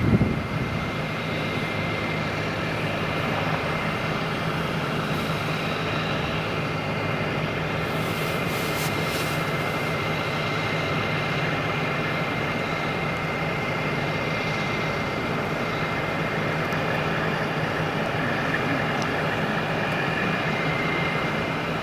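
Steady mechanical drone of idling diesel engines, a constant low hum with a thin high whine over it, unchanging throughout.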